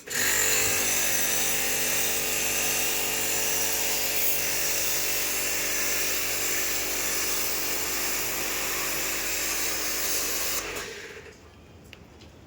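Electric power tool with its motor running steadily, a hum with a high hiss over it, cutting off about eleven seconds in.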